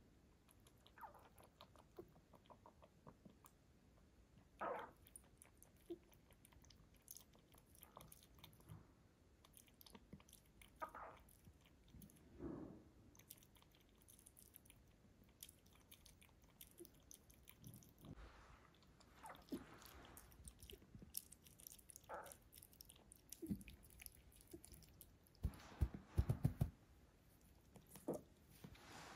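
A rabbit lapping water from a bowl: faint, irregular little licks and slurps. A short cluster of louder low thuds comes near the end.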